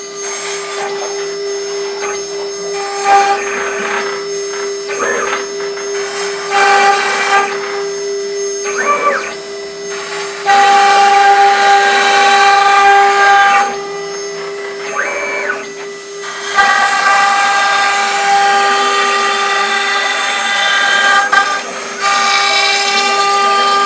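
Mini CNC router cutting foam: a steady motor whine runs throughout. Higher whining tones switch on and off and change pitch every few seconds as the machine moves.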